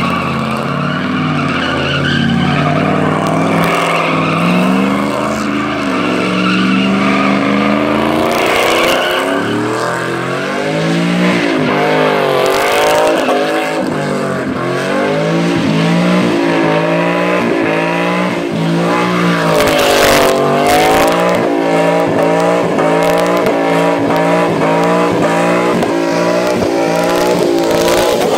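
Pickup truck doing a burnout: the engine is held at high revs while the rear tyres spin and squeal on concrete. The engine pitch swings up and down over and over, steadier at first and wavering more from about a third of the way in.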